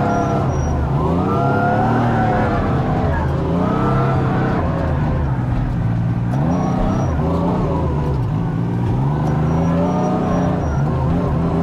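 Kubota R430 wheel loader's diesel engine running under load, its pitch rising and falling every two or three seconds as it revs up and eases off, heard from inside the cab.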